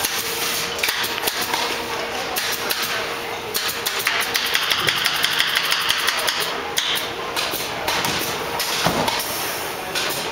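Canvas stretching machines at work: a run of sharp clicks and knocks over a steady hiss, coming thickest and fastest through the middle.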